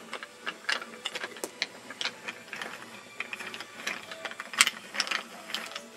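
A toy train engine moved by hand along toy railway track: irregular clicks, taps and rattles of its wheels and of handling, the sharpest a little past the middle.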